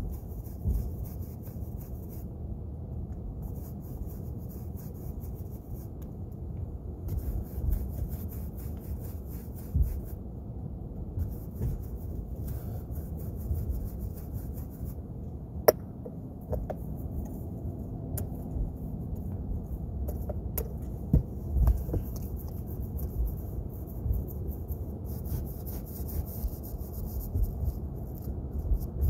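Paintbrush bristles rubbing over wooden shingles in stretches of repeated strokes, over a steady low rumble. A single sharp click about halfway through.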